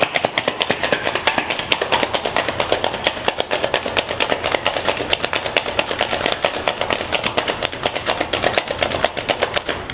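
Ice rattling inside a metal cocktail shaker during a hard shake, a fast, even run of sharp knocks, about seven a second, that stops near the end.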